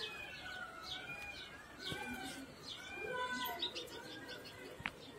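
Small birds chirping over and over, with short squirts of a cow's milk hitting a steel pail as it is milked by hand, about two or three a second.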